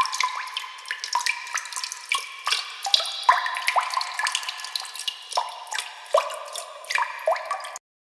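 Water dripping: a fast, irregular patter of drops, each a short rising plink, which cuts off abruptly near the end.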